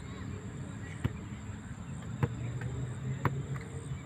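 Football kicked on a grass pitch: three sharp thuds about a second apart, over a steady low rumble and a thin steady high tone.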